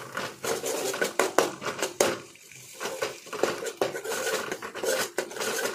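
A steel spoon clinks and scrapes against an aluminium kadai while stirring chopped onions and garlic paste frying in oil. The clatter is repeated and uneven, with a brief lull about two seconds in.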